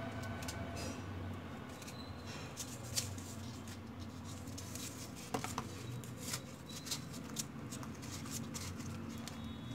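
Small pieces of cardboard being handled and pushed onto a toothpick: scattered light clicks, scrapes and rustles, the sharpest about three seconds and five seconds in, over a steady low hum.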